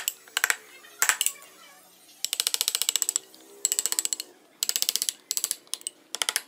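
Carving chisel paring soft wood by hand, heard as short runs of rapid ticking, several times, each run under a second long.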